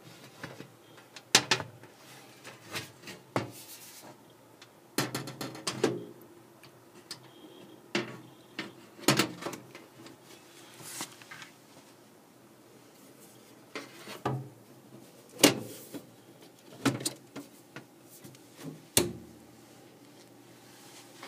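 Metal side panel of a running desktop computer case being fitted and latched shut: a series of irregular knocks, clatters and clicks, over the faint steady hum of the computer's fans.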